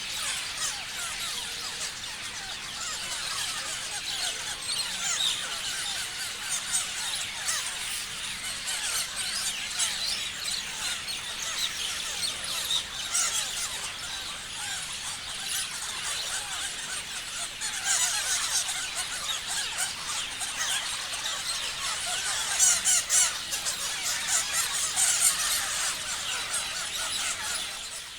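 Many parrots chirping and squealing at once, a dense overlapping chatter of short shrill calls, with a few louder screeches near the end.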